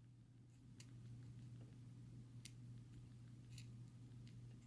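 Near silence: a faint steady low hum, with three faint light clicks of small metal padlock parts being handled.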